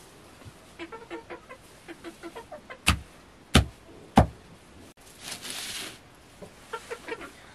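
Domestic hens clucking in short, soft, repeated notes. Three sharp knocks come about three, three and a half and four seconds in and are the loudest sounds, followed by a brief rustle.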